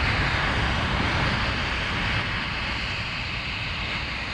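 Jet aircraft engines running, a steady rushing noise over a low rumble that eases slightly after about two seconds.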